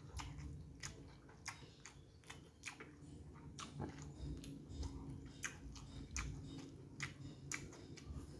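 Close-up mouth sounds of a person chewing a mouthful of noodles: faint, irregular wet clicks and smacks, a few a second.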